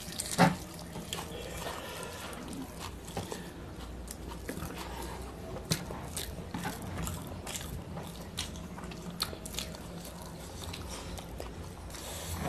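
Close-up eating sounds: biting and chewing chicken curry off the bone, with wet lip smacks and the squish of fingers mixing rice on a plate, in scattered sharp clicks over a faint steady low hum.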